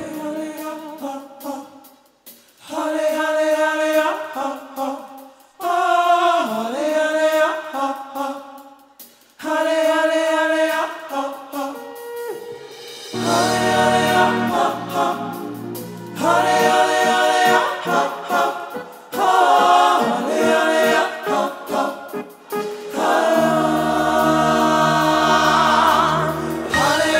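Gospel singing: lead and backing voices chanting "Halle halle ah! Ho ho" in short phrases with brief pauses between them. A keyboard's low bass notes come in about halfway through and again near the end.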